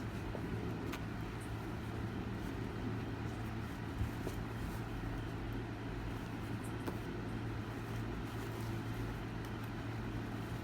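Steady low mechanical hum, like a motor or engine running in the background, with a few faint clicks.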